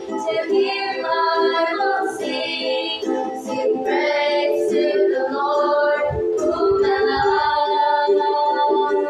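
Three young female voices singing a hymn together in sustained, held notes, accompanied by a strummed ukulele.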